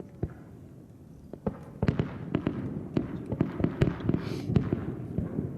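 Distant aerial fireworks bursting: a couple of separate bangs, then from about two seconds in a rapid run of many pops close together.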